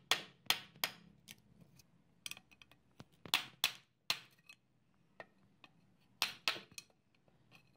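A steel punch struck in short runs of sharp blows, a few seconds apart, to knock the old wooden handle stub out of the eye of a rusty claw hammer head held in a vise.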